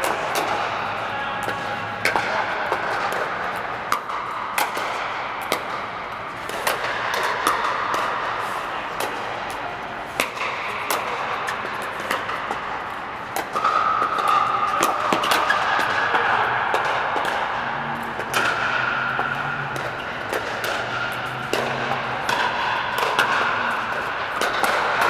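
Pickleball paddles hitting the plastic ball across many indoor courts: an irregular scatter of sharp pops, several a second, echoing under the air dome.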